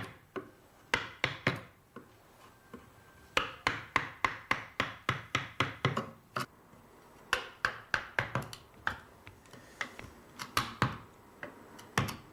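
A large genno hammer driving a roughing chisel into a block of Japanese whitebark magnolia, rough-carving it. The blows come in runs of about three to four a second, with short pauses between runs.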